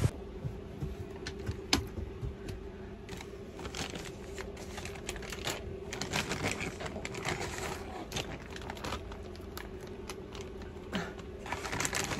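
Irregular light clicks and taps, dozens of them at no steady rhythm, over a steady low hum.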